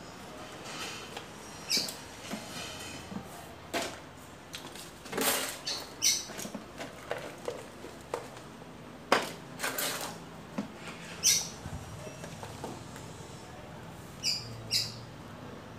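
Potting soil being scooped with a plastic tub and poured into plastic planters: irregular scrapes, rustles and knocks of plastic against plastic and soil, some ending in short high squeaks.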